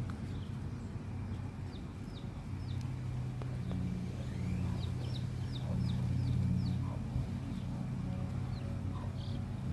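Chicks peeping: many short, high, falling cheeps, thickest in the middle. They sound over a steady low mechanical hum that swells for a few seconds mid-way.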